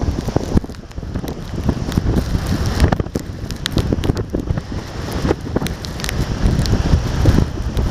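Gusty typhoon wind buffeting the microphone in uneven surges, with many scattered sharp ticks of falling sea spray.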